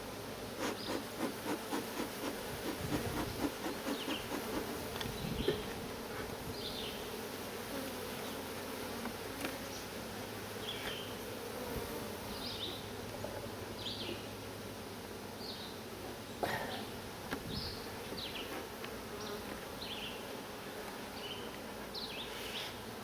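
A colony of honey bees buzzing around an open hive in a steady hum. In the first few seconds there is a quick run of soft pulses, about three a second, and short high chirps come and go throughout.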